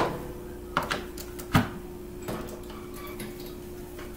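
A few light knocks and clicks from a stainless steel pedal trash can as its lid comes down, with a louder low knock about one and a half seconds in.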